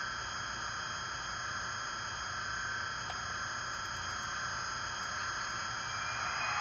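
Sound decoder of a Märklin HO model of the DB Class 102 (Skoda 109E) electric locomotive playing an electric-locomotive sound effect through its small onboard speaker, with the model standing still. It is a steady high-pitched electric whine and hiss over a low hum.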